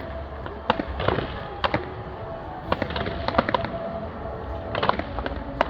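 New Year's fireworks going off: irregular clusters of sharp bangs and crackling pops over a low rumble.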